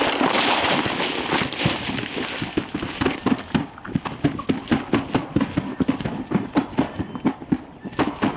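Dry brush and clothing rustling close by as a person gets up, then a fast, steady run of crunching footsteps through dry weeds and grass.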